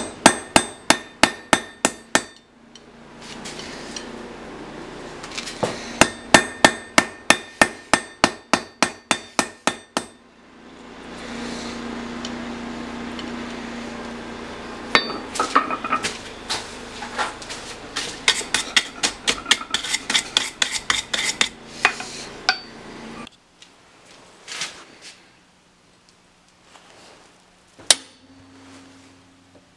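Hand hammer forging a red-hot tool-steel blank on an anvil: three bursts of quick ringing metal strikes, about four to five a second, with pauses between them. Between the second and third bursts there is a steady rushing noise with a low hum. Near the end come a few lighter taps and one single sharp metal strike.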